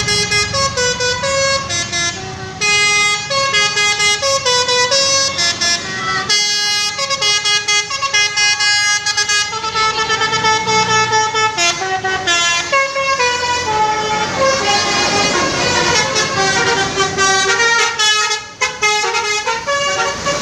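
Basuri-type telolet musical vehicle horn playing a melody: a long run of quick stepped horn notes, several tones sounding together, over a low rumble.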